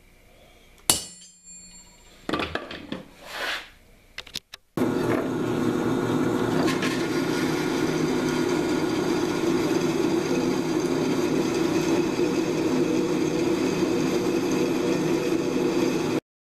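A sharp hammer strike on a center punch about a second in, followed by a few handling knocks; then, from about five seconds in, a drill press running steadily at about 350 rpm as its bit cuts into schedule 40 steel pipe, stopping abruptly near the end.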